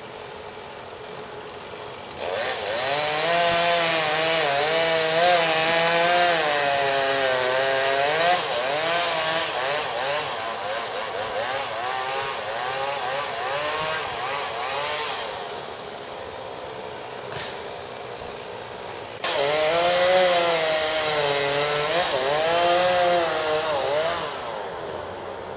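Chainsaw running in two long bouts, its pitch rising and dipping as it works, with a quieter lull between the bouts.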